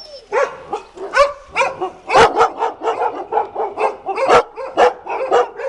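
Rapid, repeated dog barking, about three or four short barks a second, loudest about two seconds in and again just after four seconds.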